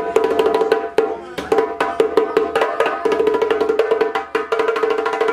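Ensemble hand drumming on two djembes and a rope-tuned barrel drum struck with a stick, playing a fast, dense rhythm over a held pitched note that breaks off and comes back. The playing stops suddenly at the very end.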